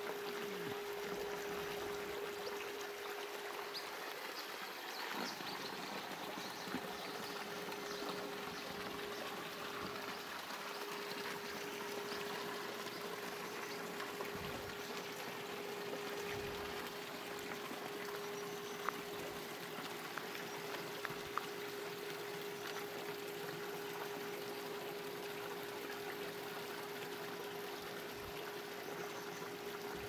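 Shallow stream trickling and splashing over rocks, a steady water noise, with a steady hum under it.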